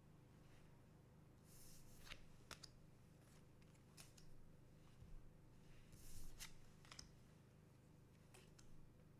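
Faint handling of trading cards: two short rustling swishes, about two seconds and six seconds in, each with a few sharp clicks.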